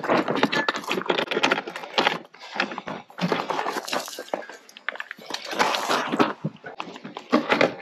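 Launching wheels being fitted to an inflatable boat's transom brackets: a run of metal clicks, knocks and rattles as the wheel legs are set into their mounts and locked, in several bursts with short pauses.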